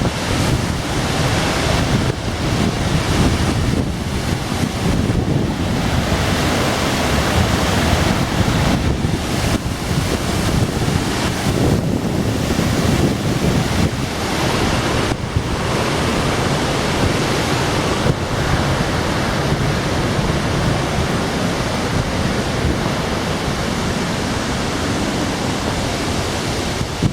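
Steady loud rush of a waterfall and stream water, with a few brief dips in level.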